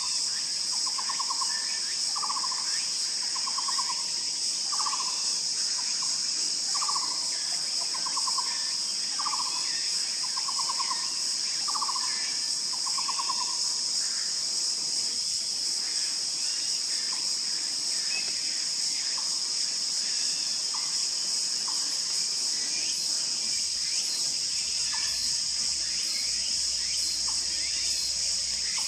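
An Asian barbet calling: a series of hollow, rolling trilled notes, about one a second, which stops about halfway through. A steady high buzz of insects runs underneath.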